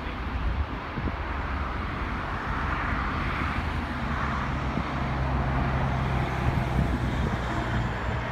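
Airbus A380's four jet engines at departure thrust, heard from afar as a steady rumble and hiss that swells slightly midway.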